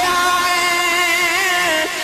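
A man's amplified voice singing one long held note of a Punjabi naat, with a slight waver, breaking off near the end.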